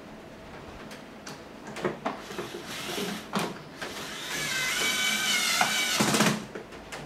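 Electric fan parts handled during reassembly: a few sharp clicks and knocks, then about two seconds of hissing with a faint wavering whistle, which ends in a knock.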